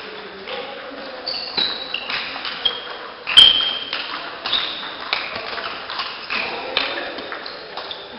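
Table tennis ball struck back and forth between bats and table in a rally: a quick series of sharp pings and taps, the loudest hit about three and a half seconds in.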